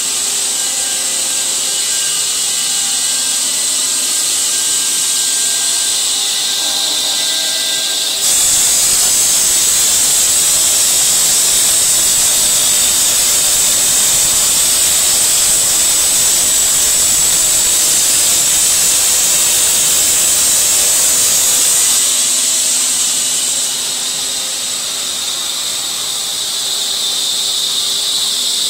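Water-cooled bridge saw blade cutting through a stone slab: a steady, loud grinding hiss with water spray. It jumps louder and sharper about a quarter of the way through and eases back again about three-quarters of the way through.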